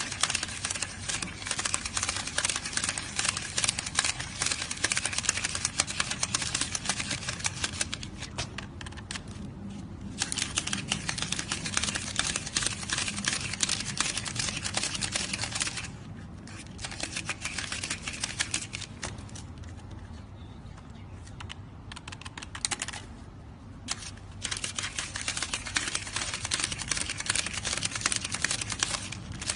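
Stack of paper banknotes being counted by hand at high speed: a rapid, crisp flicking as each note is thumbed past, breaking off briefly several times.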